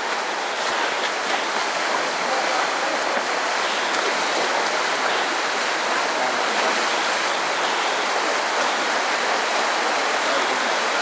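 Shallow river rushing over rocks: a steady, even wash of flowing water.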